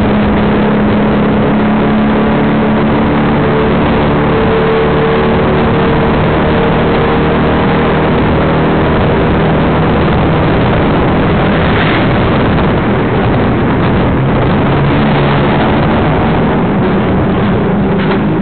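Tuk tuk (auto rickshaw) engine running loud and rough under the passenger seat as it drives through traffic, its pitch rising as it speeds up and easing off again, over a heavy rush of road noise.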